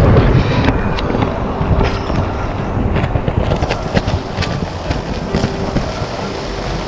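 Thunderstorm rain and wind, with gusts buffeting the microphone, loudest at the start and easing off, and many short knocks and rustles as the camera is carried into a tent.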